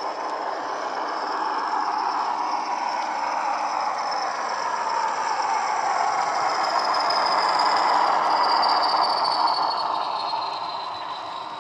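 Sound decoder's Class 40 diesel engine sound playing through the two 27mm speakers of a passing Bachmann Class 40 model. It is a steady engine drone topped by a high turbocharger whistle. The sound grows louder as the model approaches, peaks about eight seconds in, and fades as it moves away, the whistle dropping slightly in pitch.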